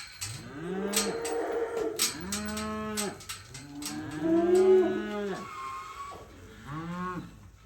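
Several weaning calves bawling, long overlapping moos one after another, the calling of calves newly separated from their mothers. A few sharp knocks sound among the calls.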